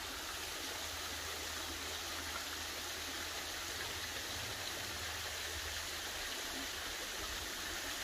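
Waterfall water rushing and splashing steadily, an even hiss with a low rumble beneath it.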